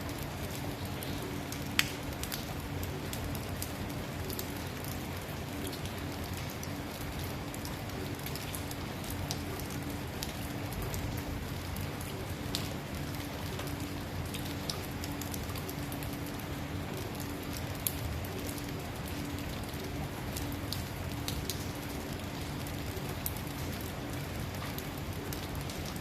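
Steady rain falling on a road, an even hiss with many scattered sharp drop ticks. One drop strikes noticeably louder about two seconds in. A faint steady low hum runs underneath.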